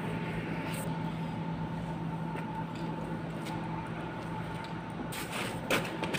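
Steady mechanical hum with a low tone that drops out about five seconds in, and a few short knocks and rustles near the end.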